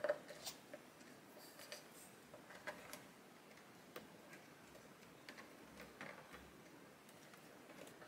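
Hands fitting rubber hose and silicone tubing into a coffee machine's plastic chassis: faint, scattered clicks and taps of handling, the sharpest one right at the start.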